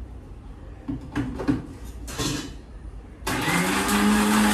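A few clicks and knocks as the mixer grinder jar is set in place, then about three seconds in the mixer grinder's motor starts, its hum rising briefly as it comes up to speed and then running loud and steady. It is grinding roasted coconut masala with a little water.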